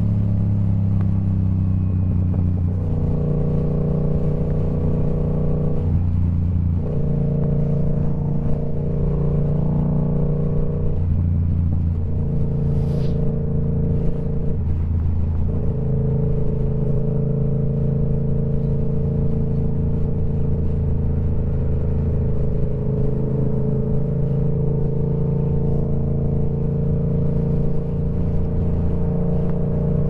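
Yamaha R7's parallel-twin engine running through a TOCE full-system exhaust. It holds fairly steady revs, shifting pitch up and down several times in the first half, then runs evenly. A brief sharp tick comes about 13 seconds in.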